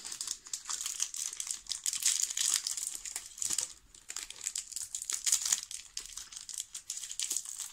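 A chocolate bar's metallised plastic wrapper crinkling as it is worked open by hand: a dense, irregular run of crackles with a brief lull about four seconds in.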